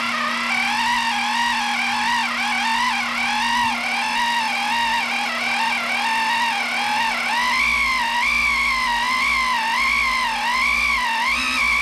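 The electric motor and brass bevel gears of a 3D-printed RC outboard whine steadily during a bench run-in at low throttle. The pitch wavers up and down about once a second: the motor is hunting at low speed, as is typical of these motors.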